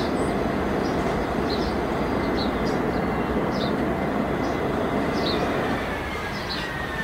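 Jet airliner's engines running loud and steady on the landing roll. Near the end the roar eases a little and a whine slowly falls in pitch.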